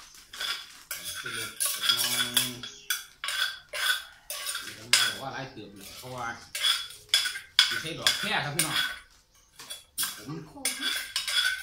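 A metal spoon scraping and clinking against the inside of a mortar in quick, irregular strokes as a mixture is stirred and mashed.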